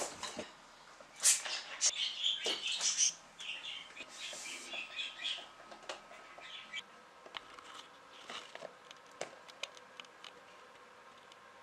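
Hands handling a plastic CD spindle tub: squeaky, crinkly scrapes and clicks of plastic, loudest about a second to three seconds in, then scattered light clicks as the clear lid is worked off the stack of discs.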